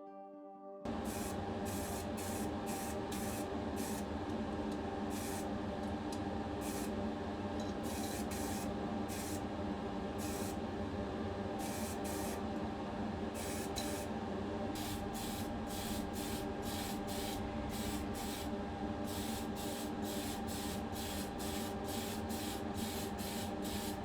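Paint being sprayed onto a die-cast model car body in many short bursts of hiss, about one or two a second, over a steady hum. This is the primer and then the colour coat going on.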